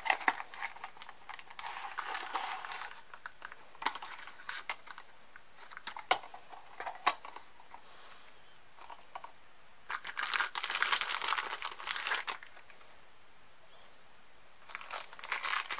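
Thin clear plastic packaging bags crinkling as they are handled, in irregular bursts. The longest burst comes about ten seconds in, with a few sharp clicks in between.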